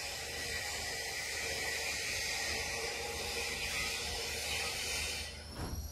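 Steady high hiss of outdoor background noise, cutting off abruptly just before the end.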